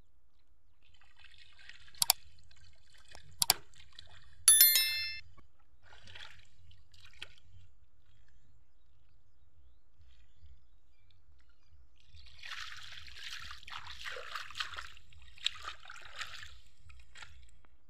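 Two pairs of sharp clicks and then a ringing bell chime from a subscribe-button animation sound effect in the first five seconds. About twelve seconds in, water splashes and trickles for several seconds.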